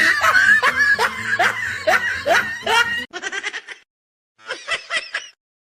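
A person laughing: falling "ha-ha" syllables over faint background music, then two short bursts of quick snickering after a pause about three seconds in.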